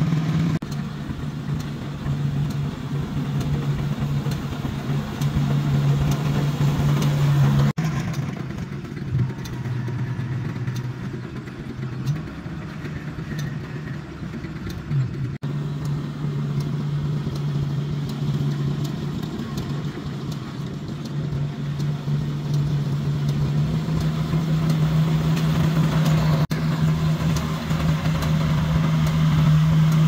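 Combine harvester engine running steadily at an even pitch, broken off abruptly a few times.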